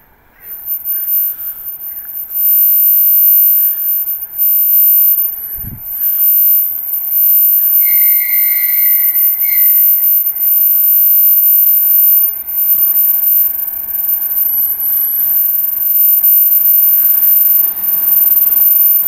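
Approaching ER2 electric train sounds two high whistle blasts about eight seconds in, a longer one and then a short one. A constant high-pitched whine lies over everything, with a single dull thump a little before the whistle.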